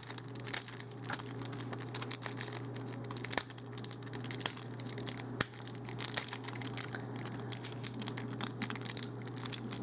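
Plastic packaging of a trading-card deck crinkling and tearing as it is pulled open by hand, with dense, irregular crackles.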